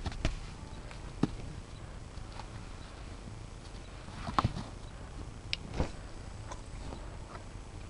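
Horse hooves knocking and stepping on dry pasture ground as one mare climbs down off another: a few separate knocks, the loudest about four and a half seconds in and another near six seconds, over a steady low rumble.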